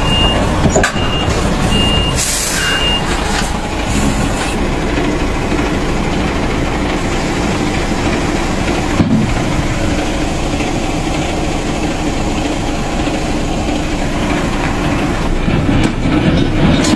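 Truck's diesel engine running steadily, with a warning beeper sounding in short, evenly spaced beeps for about the first three seconds and a brief hiss of air about two seconds in.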